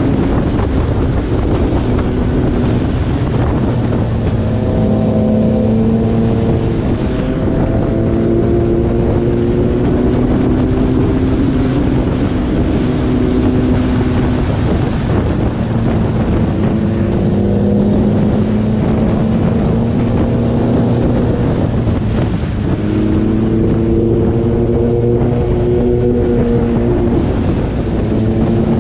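Kawasaki ZX-10R's inline-four engine running at road speed, its pitch rising and falling in steps as the bike is ridden through bends, under constant wind rush on the microphone.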